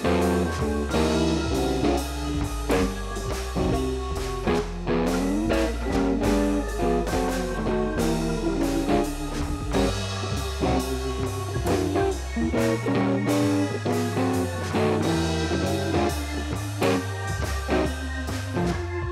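Background music: a bluesy rock track led by guitar over bass and drums, with a steady beat.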